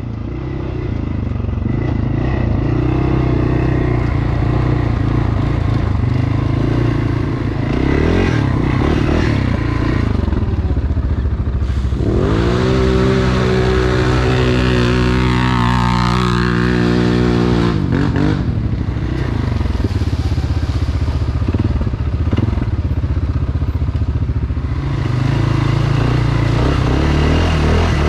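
ATV engine running under way, revving up about twelve seconds in, holding higher revs for several seconds, then dropping back.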